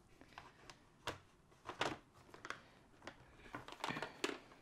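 Hard plastic bead storage tray handled and lifted on a table: a handful of short plastic clicks and knocks, a few clustered near the end as it is picked up.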